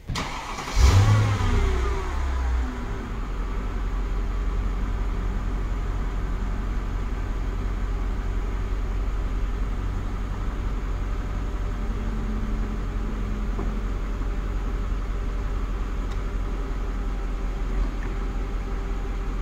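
Mercedes SL500's V8 engine starting about a second in, flaring briefly, then settling into a steady idle.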